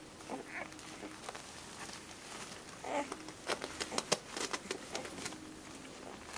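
Week-old whippet puppies squeaking and whimpering faintly while they nurse, with a cluster of sharp clicking smacks a little past halfway from suckling and the mother licking a pup.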